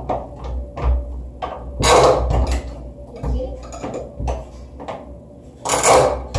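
Repeated knocking and banging on a wooden door, a few knocks a second, with two louder, longer bangs about two seconds in and near the end.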